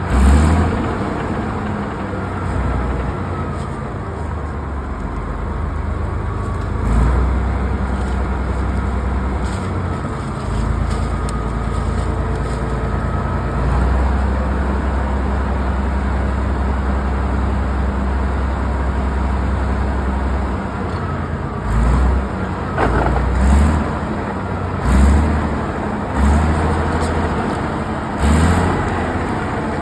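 Heavy diesel machinery engine running steadily. In the last third there are several short, loud knocks.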